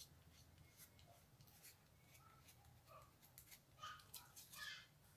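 Near silence with faint crackles and rustles of a cardboard letter and its glued paper strips being handled and pressed by fingers.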